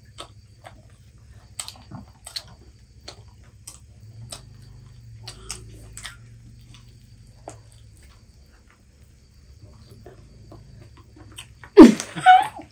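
Scattered small crunches and mouth clicks of people eating crispy fried chicken lollipops, with a short, loud burst of voice near the end.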